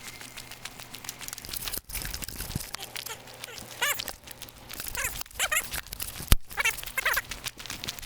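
An animal's short, wavering pitched cries, several times over the second half, against a constant crackle of small clicks. A single sharp crack sounds about six seconds in and is the loudest thing.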